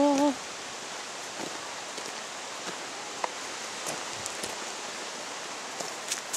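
Steady outdoor noise of wind and rustling on a camcorder microphone, with a few faint clicks. A brief falling call sounds right at the start.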